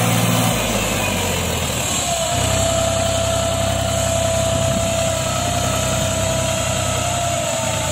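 Mahindra 265 DI tractor's three-cylinder diesel engine running under load, hauling a heavily loaded sand trolley through wet, soft ground. Its note shifts about half a second in and again about two seconds in, and a steady whine sits over it from then on.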